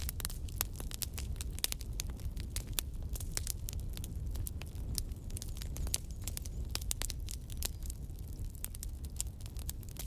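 Wood fire crackling, with many quick, irregular pops over a low, steady rumble of the flames.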